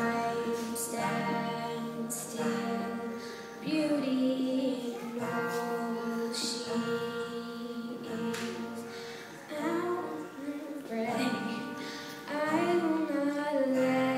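A girl singing a song into a microphone, with long held notes, accompanied by acoustic guitar.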